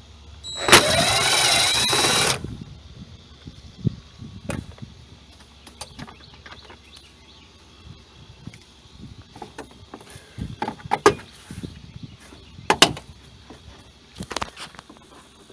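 A cordless impact wrench (DeWalt DCF889) runs in one loud burst of under two seconds, its pitch wavering as it hammers on a bolt. Scattered light clicks and knocks of trim and parts being handled follow.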